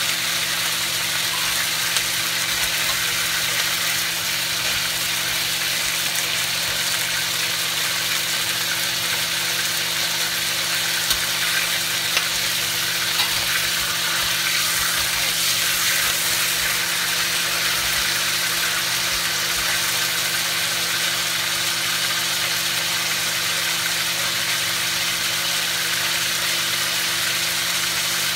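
Blue crabs sizzling as they fry in hot oil in a wok, an even hiss over a steady low hum, with a few light clicks of the spatula against the wok.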